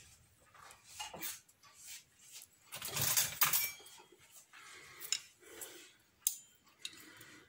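Kitchen clatter of cutlery and dishes: scattered light clinks and knocks, a louder rattle about three seconds in, and a few sharp clicks near the end.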